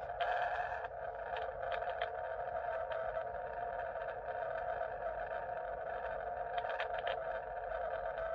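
Receiver audio from a Xiegu X6100 shortwave transceiver on 20 m CW: a steady band-noise hiss confined to the narrow CW filter, with brief crackles of static.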